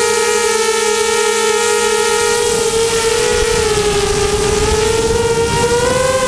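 Storm Racing Drone SRD250 V3 quadcopter's brushless motors and propellers whining in flight, heard from its onboard GoPro. The pitch holds steady, sags a little around the middle and climbs again near the end as the throttle changes, over a steady rush of air noise.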